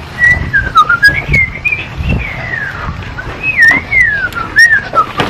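A person whistling a wandering tune, one clear note sliding up and down. Knocks and thumps from the camera being carried break in several times and are the loudest sounds.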